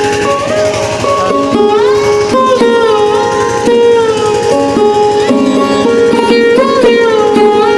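Background instrumental music: a plucked-string melody with notes that bend up and down in pitch over a steady drone.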